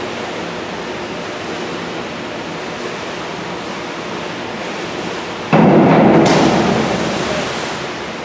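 Steady hiss of an indoor pool hall. About five and a half seconds in, spectators break into sudden cheering and clapping as the springboard dive finishes, fading toward the end.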